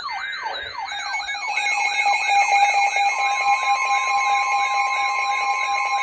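Emergency alert tones for a tornado warning, several sounding at once: a falling whoop repeating about four times a second over a warbling high tone. A steady tone joins about a second in, and a second, slightly higher tone joins about three seconds in, together making the two-tone EAS attention signal.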